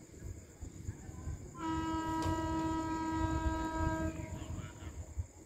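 Railway locomotive horn sounding one long, steady blast of about two and a half seconds, starting about a second and a half in. A low rumble runs underneath.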